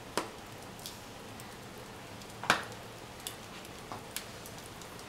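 Wood fire in an open fireplace crackling, with scattered sharp pops of burning logs; the loudest pop comes about halfway through.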